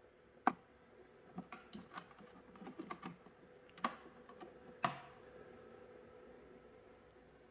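A scatter of light clicks and taps from handling the charge controller and its temperature probe cable, the sharpest about half a second in and near four and five seconds, over a faint steady hum.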